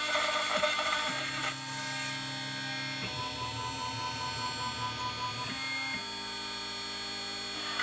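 CNC milling machine running as it drills holes in an aluminium plate: a steady spindle whine with the axis motors driving the drill from hole to hole. The machine's note shifts in steps about one, three and five and a half seconds in.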